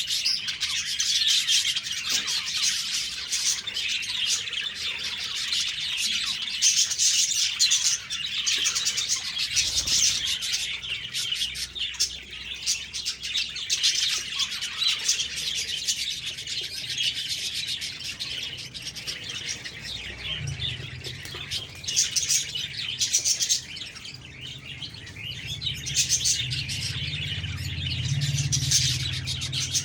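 A group of budgerigars (budgies) chirping and chattering continuously, many short high chirps overlapping.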